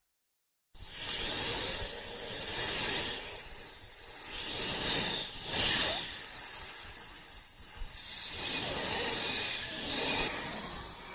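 Snake hissing: after a brief silence, a loud, long run of breathy hisses that swell and ease several times, with an abrupt change in tone near the end.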